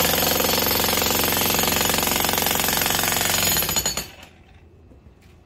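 Electric demolition jackhammer (VEVOR 2200 W) breaking a concrete slab with a chisel bit: rapid, steady hammering that stops about four seconds in.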